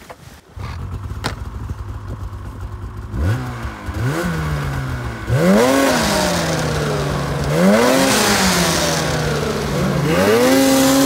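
Polaris Pro RMK 850 snowmobile's two-stroke twin engine idling, then blipped up and back down several times, the last rev held high near the end. With the exhaust clear it revs cleanly, with no bog.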